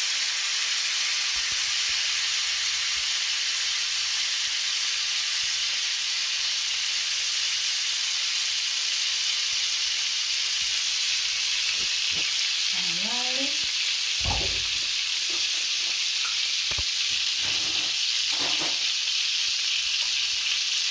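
Melted butter sizzling steadily in a small skillet on a gas burner as lemon juice drips into it through a wire strainer. A few short knocks and clicks come about two-thirds of the way through.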